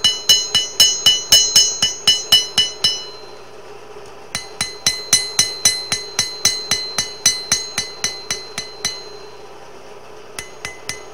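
Blacksmith's hammer drawing out the edge of a hot spring-steel blade on an anvil. Two quick runs of ringing blows, about four to five a second, with a short pause between them, then a few single blows near the end.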